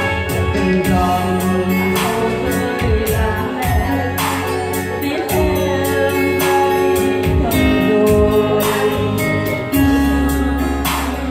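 A woman singing a slow ballad into a microphone through a PA, accompanied by an electronic keyboard with a steady programmed beat.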